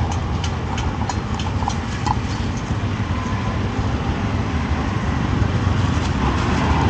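Small dried clam shells clicking and clattering as they are scooped with a tin can and poured into a plastic bag, over a steady low rumble of street traffic.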